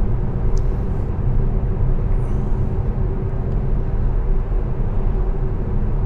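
Steady road and tyre noise inside the cabin of an electric Tesla Model S cruising at about 80 km/h, a low, even rumble with no engine sound.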